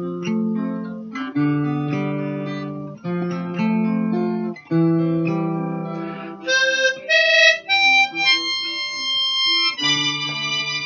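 Acoustic guitar strumming slow chords; about six seconds in, a harmonica comes in playing the tune over the guitar.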